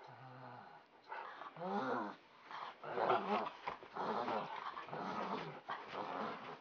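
Dogs growling in rough play, in several bouts, loudest about three seconds in.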